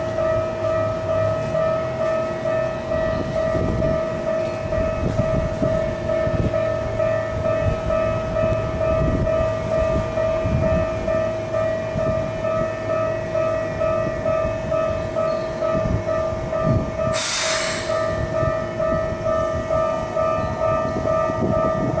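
Keikyu electric trains running slowly through a station: a 2100-series limited express passes, then a 1500-series local approaches. A steady, slightly pulsing ringing warning tone runs underneath, and there is a short hissing blast about seventeen seconds in.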